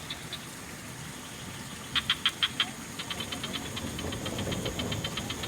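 Frogs calling in fast trains of short pulses, with a louder run of about five croaks about two seconds in. A low rush of trickling water runs underneath and grows louder near the end.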